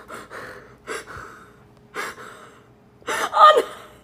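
A person's breathy gasps, short bursts about a second apart, then a louder voiced cry near the end.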